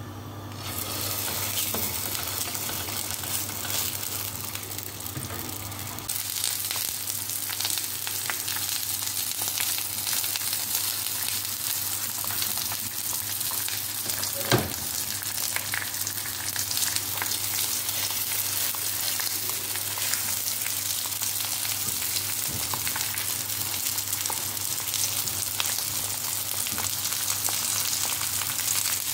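Squares of filled msemen dough frying in hot oil in a non-stick pan: a steady sizzle that starts as the first piece goes in and grows louder about six seconds in as more pieces are added. A single sharp knock about halfway through is the loudest moment.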